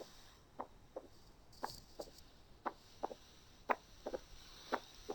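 Heart sounds of a patient with mitral stenosis, recorded through a stethoscope: a steady lub-dub, paired beats about once a second. This is the patient lying on the back, where the diastolic murmur is still hard to hear.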